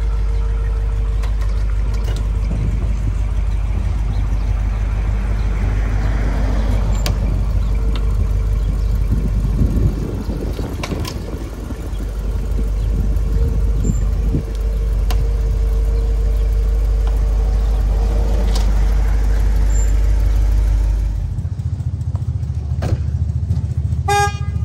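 Vehicle engine running at a steady idle, a low rumble that dips briefly about halfway through and changes near the end.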